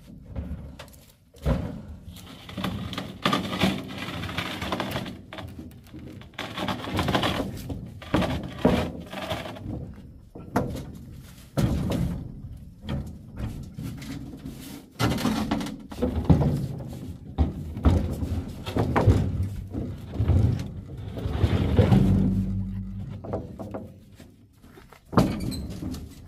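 A long series of irregular thuds and knocks, with a brief low steady hum about twenty-two seconds in.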